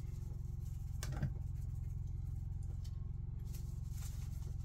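A shaker bottle of Weber brown sugar rub being shaken over raw chicken breasts, the seasoning falling in faint, scattered patters, with one sharp knock about a second in. A steady low hum runs underneath.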